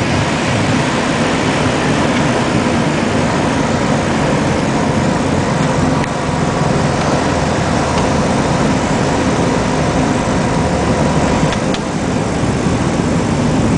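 The aircraft's engines run steadily, heard loud from inside the cockpit as the plane rolls along the runway after landing.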